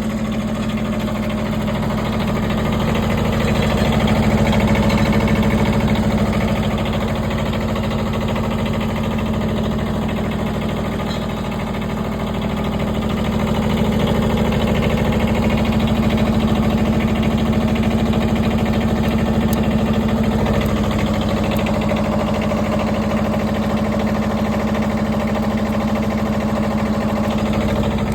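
Engine of a Wood-Mizer LT15 Wide portable band sawmill running steadily, its level swelling and easing twice.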